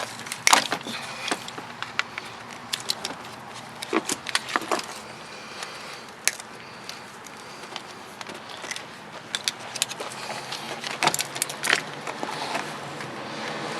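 Irregular metal clicks, clinks and rattles of small parts and tools being handled as an old sewing machine is taken apart by hand for scrap, over a faint steady low hum.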